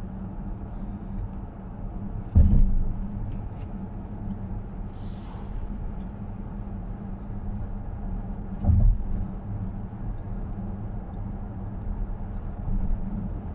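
Steady low engine and tyre rumble inside a car cruising on a motorway. There are two dull thumps, one a couple of seconds in and another past the middle, and a short soft hiss about five seconds in.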